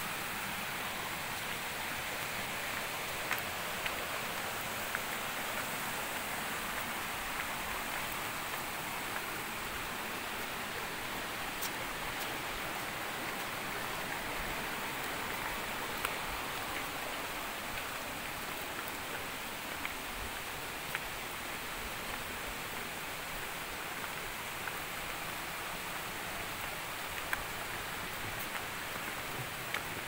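Steady rush of flowing stream water, with a few faint scattered clicks.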